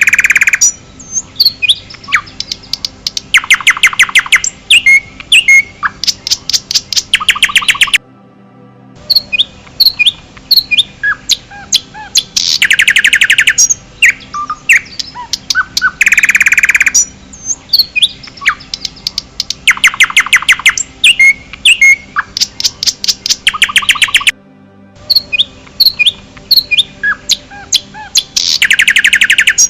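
Forest birdsong: several birds chirping, with loud fast trills of rapid repeated notes that come every few seconds. The recording loops about every 16 seconds, with a brief drop in sound about 8 and 24 seconds in.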